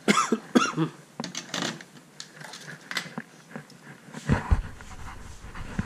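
Camera and bench handling noise: knocks, clatter and scattered clicks as the soldering iron is moved past the camera and the camera is picked up and repositioned. About four seconds in, a low rubbing rumble on the microphone starts.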